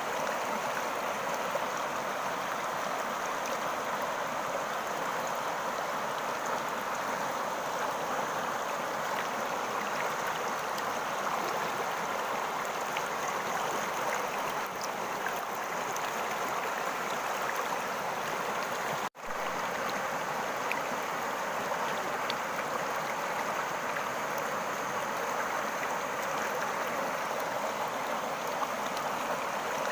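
Steady rush of water running in a stream, with a brief break about two-thirds of the way through.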